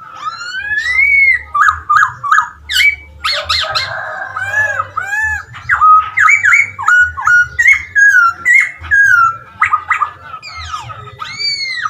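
Masked laughingthrush (poksay Hongkong) singing a fast, varied run of loud whistled phrases: arched notes that slide up and down, quick stuttering trills and a few harsh notes.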